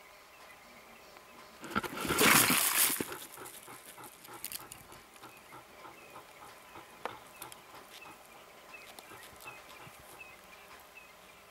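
Clash between a leopard and a Cape porcupine: a sudden loud, rattling, noisy burst starts about two seconds in and lasts about a second. Fainter scattered clicks follow.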